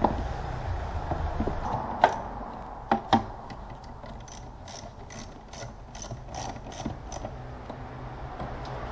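A few sharp knocks, then a hand ratchet wrench clicking in an even run of about four to five clicks a second for roughly three seconds before it stops.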